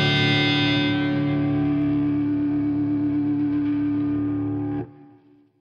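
Distorted electric guitars and bass holding the song's final chord, which rings on and then stops abruptly about five seconds in, leaving a short fading tail.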